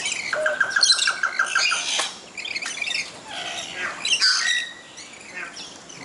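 Lories and lorikeets squawking and screeching, with a fast run of short repeated notes over the first couple of seconds, then scattered harsh high calls.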